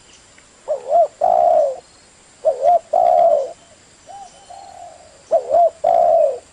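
A dove cooing: three loud calls, each a short wavering note followed by a longer drawn-out coo, with a fainter call between the second and third.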